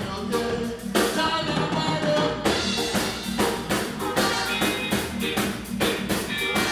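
Live band music with a steady drum-kit beat and a singer's voice over it.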